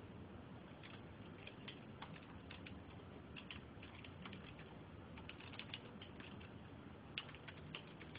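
Faint, irregular clicking of a computer keyboard being typed on, busier in the second half, over a low steady hum.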